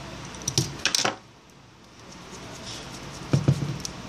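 Small clicks and taps of a precision screwdriver and a smartphone being handled while the last back-cover screws go in: a few sharp clicks in the first second, then a short quieter stretch, then a couple more knocks near the end.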